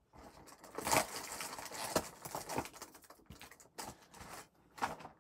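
Fingers scratching, tearing and crinkling at the cardboard door of a crystal advent calendar box as it is picked open, with scattered light taps and clicks.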